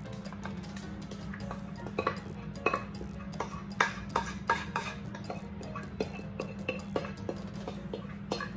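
A utensil clinking and scraping against a mixing bowl as cornbread batter is scraped out into a foil pan: a run of short sharp clinks, thickest from about two seconds in, over a steady low hum.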